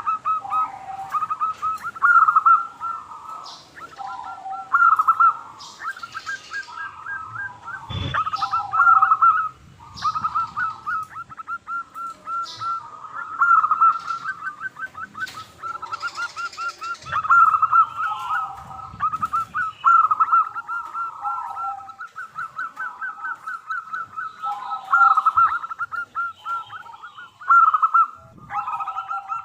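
Zebra dove (perkutut) cooing: rapid rolling strings of short notes repeated almost without pause, as used for luring other doves. A single sharp knock comes about eight seconds in.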